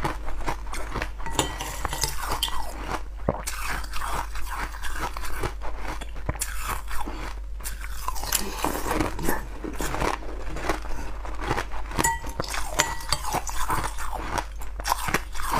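A person biting and chewing crunchy, icy green slices close to a clip-on microphone, with irregular crunching throughout. A couple of short, light metallic clinks come near the end.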